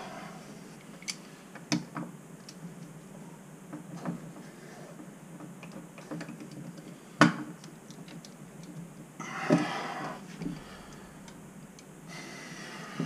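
Scattered metallic clicks and knocks of pliers working on a Moen single-handle kitchen faucet's cartridge, the loudest a sharp knock about seven seconds in.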